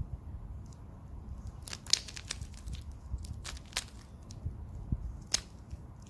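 Plastic layers of a 3x3 mirror cube being turned by hand, giving sharp clicks and clacks in short clusters: a run of them about two seconds in, more around three and a half seconds, and a single loud one near the end, over a low steady background rumble.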